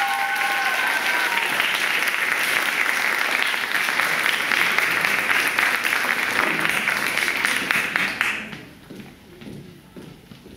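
Audience applauding steadily, then fading out about eight seconds in.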